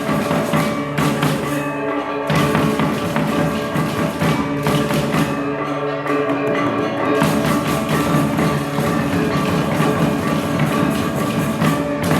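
Balinese gamelan gong ensemble playing a tabuh: bronze metallophones and gongs ringing under a dense stream of struck notes, with a high metallic shimmer that drops out briefly twice.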